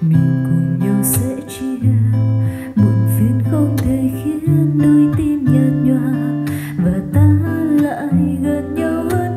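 A Bose SoundTouch 20 Series III wireless speaker playing a song over Bluetooth: a guitar accompaniment with a singing voice and a moving bass line.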